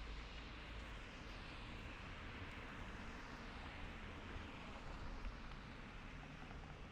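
City street traffic: a passing vehicle's tyre and engine noise swells and then fades over a low rumble.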